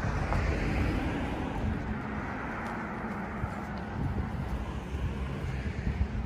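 A car passing on the road alongside, its tyre and engine noise swelling over the first second or two and then slowly fading. Wind buffets the microphone throughout.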